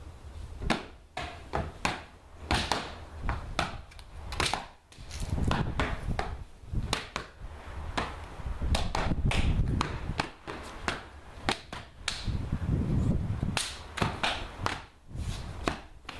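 Sharp hand slaps and claps of a Kenpo karate form, coming in quick runs and single cracks, with low thuds of stepping and stamping in between.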